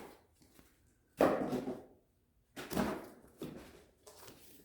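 Packing materials and saw parts being handled: a sudden rustling scrape about a second in that fades out, followed by smaller rustles and knocks.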